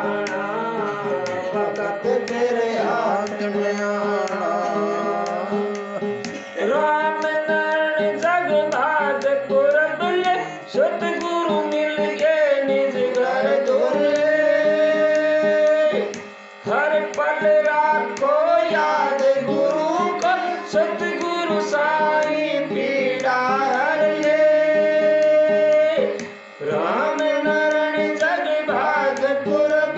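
Men singing a Hindi devotional shabad together into a microphone, in long held, sliding notes, with drum accompaniment; the singing breaks off briefly twice, about halfway and near the end.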